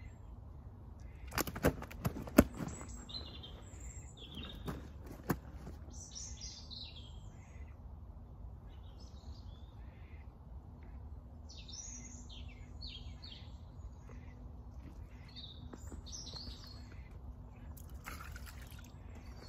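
Wild birds chirping and calling in short, repeated phrases, with a quick cluster of sharp knocks and taps near the start, the loudest about two seconds in, and a couple more a few seconds later.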